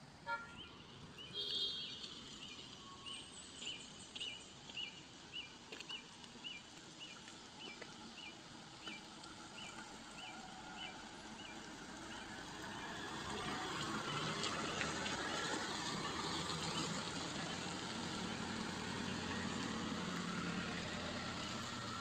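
Cars and a van driving slowly along a muddy dirt road: engine and tyre noise that grows louder about halfway through as they pass close and stays up. In the first half a short high chirp repeats about twice a second.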